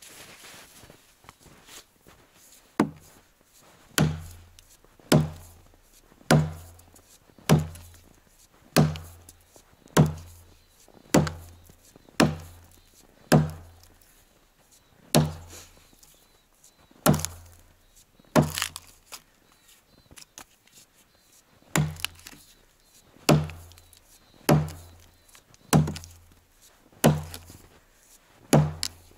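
Forged Toporsib 'Burunduk' axe on a 75 cm handle chopping into a dry standing-dead tree trunk, biting out the felling notch in small chips. Steady blows about one a second, each a sharp crack with a dull thud, with two brief pauses midway.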